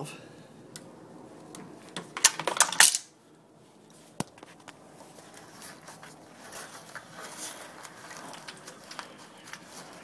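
Water heater drain valve being turned open by hand: a loud burst of rattling clicks about two to three seconds in, one sharp click a second later, then faint scattered clicks and a light rustle.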